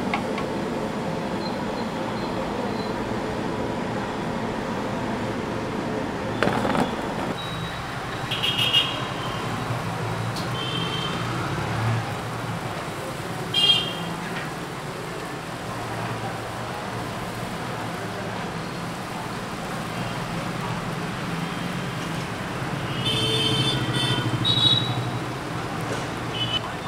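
Hot oil sizzling steadily as puris deep-fry in an iron kadai, with street traffic running underneath. A few short high-pitched sounds stand out now and then.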